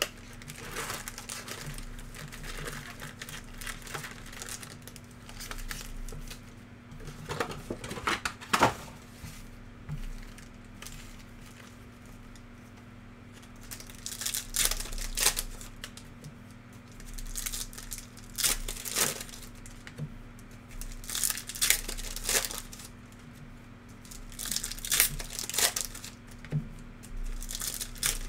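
Panini NBA Hoops trading-card packs being torn open, the wrappers tearing and crinkling in bursts every few seconds, over a low steady hum.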